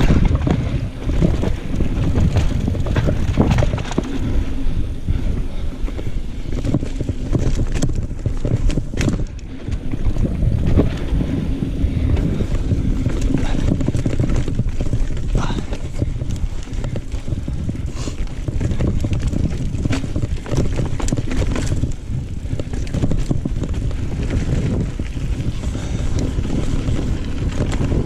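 Wind rushing over a GoPro's microphone while a mountain bike is ridden over rough trail, with tyre rumble and frequent knocks and rattles from the bike.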